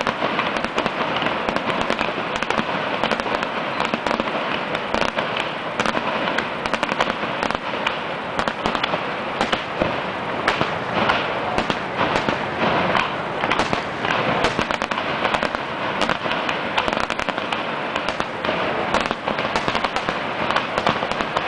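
Fireworks display: a dense, unbroken crackle of many small bursts and pops, with rising shells and their explosions overlapping at a steady level.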